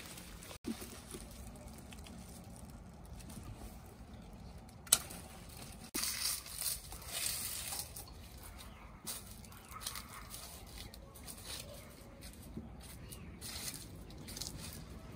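Guava branches, leaves and the bags wrapped around the fruit rustling and crinkling as guavas are picked, with one sharp snip of pruning shears about five seconds in.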